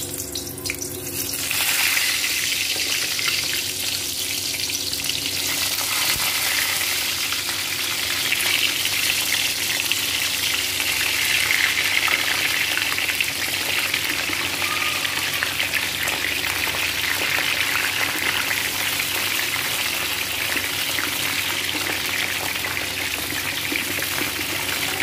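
Stuffed green bell peppers sizzling and crackling in hot oil in a wok as they are set in one after another; the sizzle grows louder about two seconds in, then holds steady.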